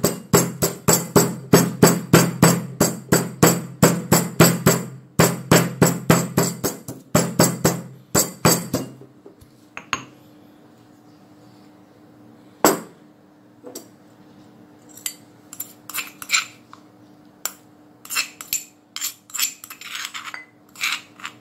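Stone pestle pounding bird's eye chilies in a stone mortar, about three to four strikes a second, with a short pause about five seconds in, and stopping about nine seconds in. After that come a few single knocks, and near the end a spoon scraping and clinking against the mortar as the crushed chilies are scooped out.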